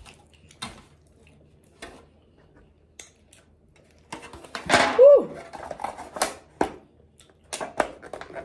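Foil-lined lid of a takeout bowl crinkling as it is handled and pressed back down onto the bowl, after a few scattered light taps. A short hum of a voice comes about five seconds in.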